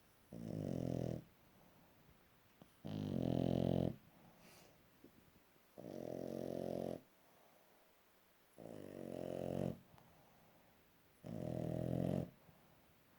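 Boston terrier puppy snoring loud: five snores of about a second each, one roughly every three seconds, with quiet breathing between them.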